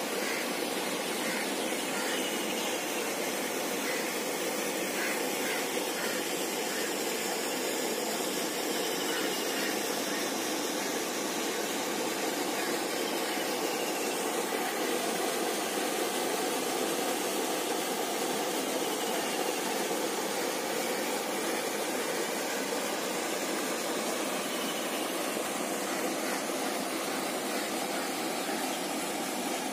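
Steady rushing hiss of water spray from a lake aerator fountain splashing onto the lake surface. A faint short falling note recurs every five or six seconds.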